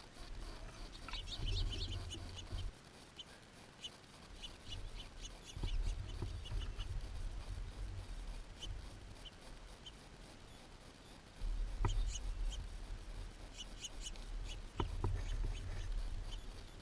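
Small birds at a feeder chirping in quick runs of short, high chirps. Underneath are bouts of low rumbling noise and a couple of sharp knocks.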